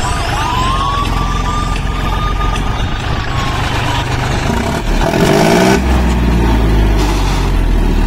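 John Deere 5036D tractor's three-cylinder diesel engine running steadily under load while the tractor is held up on its rear wheels, with a thin siren-like tone gliding up and then slowly down over it for the first few seconds. About five seconds in comes a louder burst of noise and the engine's low note grows stronger as the front end comes back down.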